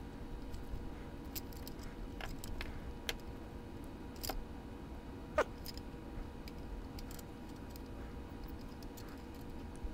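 Faint, scattered small clicks and taps of a jeweller's screwdriver and little plastic gears being handled as a TYCO Power-Torque model locomotive gearbox is taken apart. The sharpest click comes about five seconds in.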